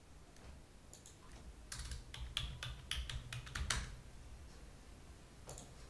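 Computer keyboard being typed on: a quick run of keystrokes, with a couple of lighter clicks about a second in and one more click near the end, over a low hum.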